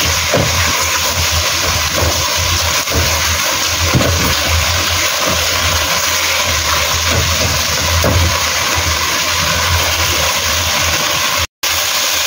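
Marinated pork rib pieces sizzling in a hot wok in a little oil and their own released juices, with a silicone spatula now and then scraping and turning them, over a steady low hum. The sound cuts out for a split second near the end.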